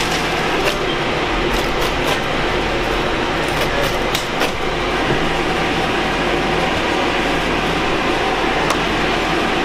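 A steady mechanical drone with a low hum runs throughout. Over it come scattered short clicks and rustles, mostly in the first half, from a plastic trash bag being handled and old carpet being cut and rolled up.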